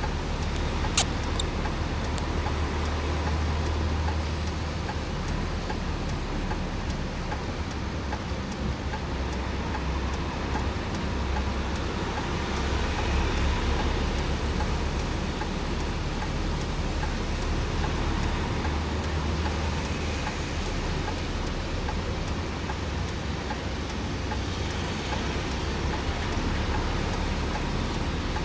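Road traffic: vehicles moving along the road, a steady rush of engine and tyre noise over a low rumble. A couple of sharp clicks come about a second in.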